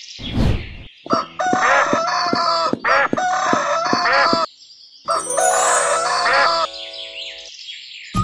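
Chicken calls: a short whoosh, then loud repeated hen clucks and cackles in two runs, with faint bird chirps underneath.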